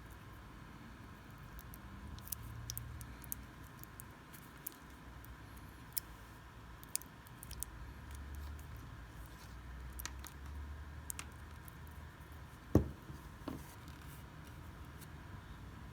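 Scattered light clicks and taps of small parts and tools being handled on a workbench, with one louder knock about 13 seconds in, over a faint steady hum.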